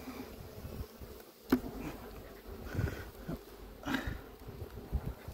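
Honeybees buzzing over an opened hive, with a few sharp clicks and knocks of a metal hive tool against the wooden frames, the loudest about a second and a half in.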